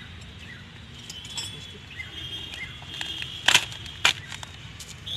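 Steel spanners clinking against each other as a hand picks through a pile of wrenches, with light rattles and two sharp metallic clinks about three and a half and four seconds in.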